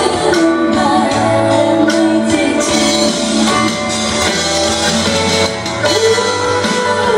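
A woman singing a Thai pop song into a microphone over instrumental accompaniment with guitar, with a short stretch without her voice around the middle.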